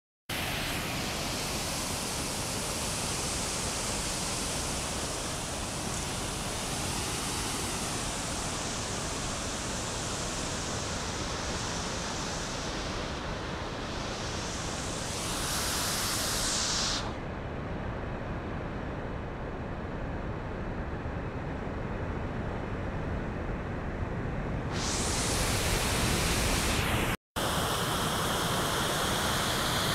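Water overflowing a hydroelectric dam's crest spillway and crashing down the concrete face into the basin: a steady rushing roar of falling water. It sounds duller for several seconds in the middle and cuts out for an instant near the end.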